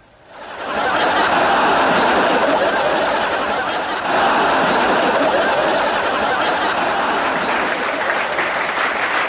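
Studio audience laughing and applauding. The laughter swells about half a second in, eases slightly around four seconds, then swells again.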